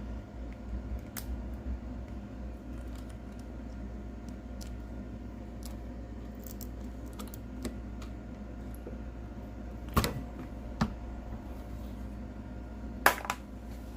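Small clicks and handling of 3D-printed plastic shot capsules at a .452 bullet sizer, with two pairs of sharp clacks, about ten and thirteen seconds in, as a capsule is run down through the sizing die.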